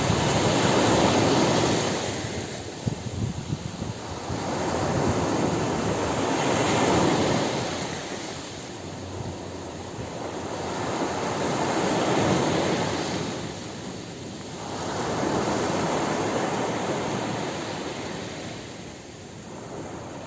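Ocean surf washing onto a beach: a steady rushing noise that swells and ebbs as each wave breaks, about four waves over the stretch, roughly every five seconds.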